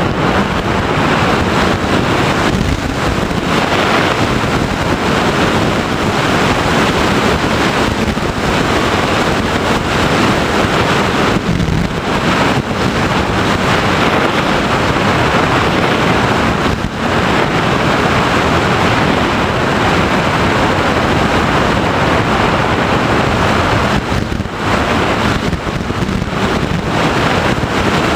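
Loud, steady wind rush over the onboard camera microphone of an FPV Raptor model plane in flight, easing briefly a few times.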